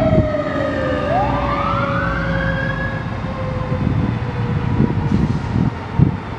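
Fire engine siren wailing as the engine drives off: the pitch sweeps down, then climbs again and fades, while a second lower tone slides slowly down under it. The truck's engine rumbles underneath, with a few knocks near the end, the loudest about six seconds in.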